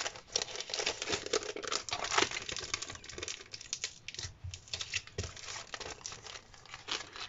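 Clear plastic sleeve of a pad of craft paper crinkling as hands handle the pad and sleeve, with paper sheets rustling. Irregular crackles, busiest in the first few seconds and sparser after.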